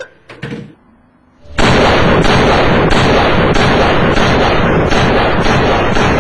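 Gunfire that breaks out suddenly about one and a half seconds in: a loud, continuous barrage with stronger shots about three times a second.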